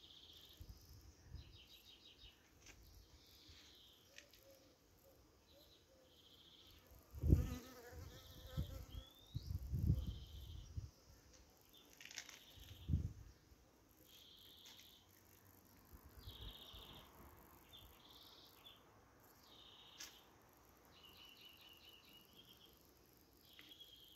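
Bees buzzing, one passing close with a wavering buzz about seven seconds in. A bird repeats short high chirps, with a trill near the end, and a few low thumps hit the microphone.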